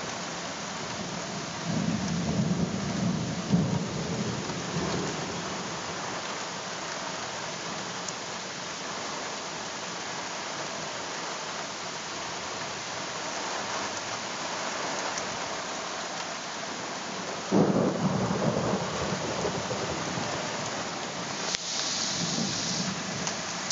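Steady heavy rain from a thunderstorm, with thunder rumbling three times: about two seconds in, a sudden crack and roll about seventeen seconds in, and another rumble near the end.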